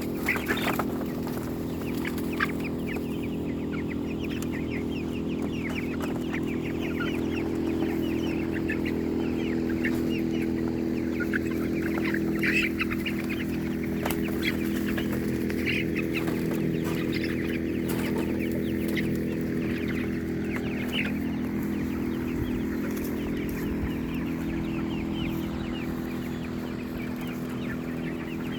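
A flock of chickens clucking and calling in many short high notes, over a steady low hum.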